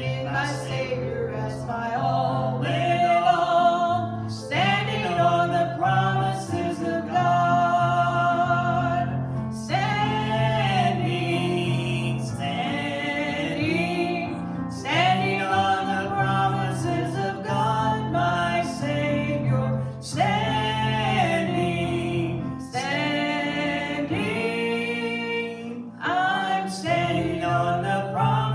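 Gospel worship song: sung melody with long held notes over instrumental accompaniment.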